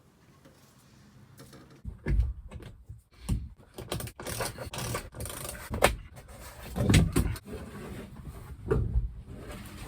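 Irregular knocking, thumping and scraping of objects being handled and moved, with several heavy thumps, starting about two seconds in.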